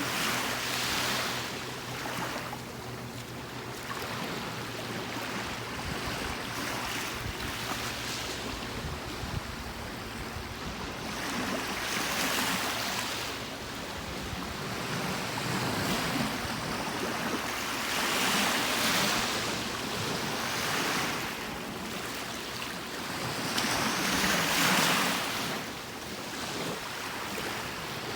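Gentle ocean waves washing in on a beach, each one swelling and breaking every several seconds.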